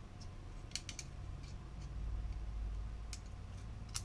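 Small sharp clicks and taps of a screwdriver and small carbon-fibre parts being handled on a workbench: three close together about a second in, then single clicks later, over a low rumble in the middle.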